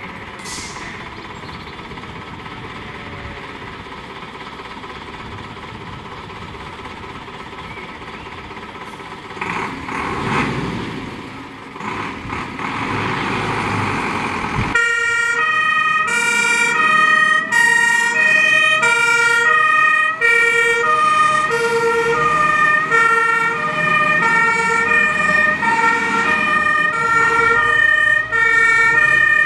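A fire engine's diesel engine runs, louder as it pulls out about a third of the way in. About halfway through, a German two-tone fire-engine siren (Martinshorn) comes in suddenly, loud and alternating between a high and a low note.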